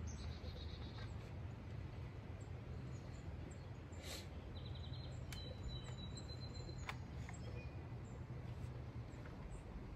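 Quiet outdoor ambience: a steady low rumble with faint bird chirps around the middle, and a few soft clicks.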